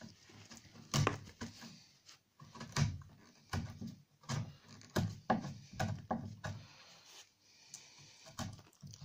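Bevel-edge chisel pushed by hand through a pine cupboard frame, paring out a scribed notch. It makes a series of short, irregular cutting sounds as wood chips split away.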